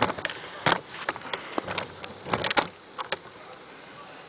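Handling noise from a camera tripod being lowered and adjusted: a series of irregular clicks and knocks, with the loudest cluster about two and a half seconds in.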